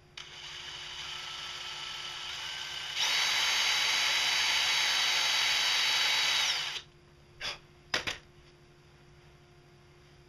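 DeWalt cordless drill boring through a small worn toothed lathe motor pulley. It runs at a lower speed for about three seconds, then steps up faster and louder for about four seconds before stopping, followed by two short bursts.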